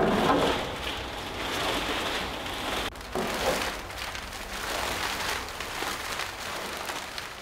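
Plastic sheeting rustling and crinkling as it is handled, a dense crackle like rain on a surface, loudest at the start.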